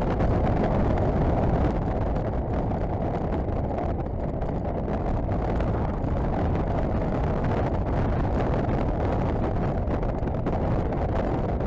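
Steady rush of wind over an action camera's microphone on a moving motorcycle, with the KTM 1190 Adventure's V-twin engine running underneath.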